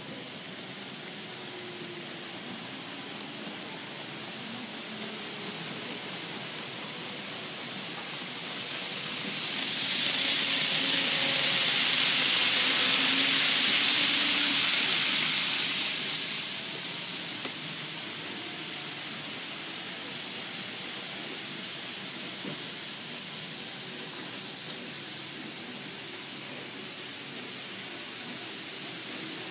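Model trains running on the layout's track: a steady light hiss of small wheels and motors. For several seconds in the middle it swells into a loud rushing hiss as a train passes close to the camera on the near track, then settles back.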